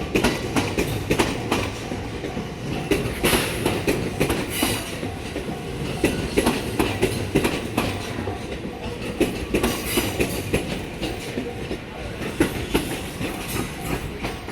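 A train passing close by, its wheels clacking rapidly and unevenly over the rail joints above a steady rumble.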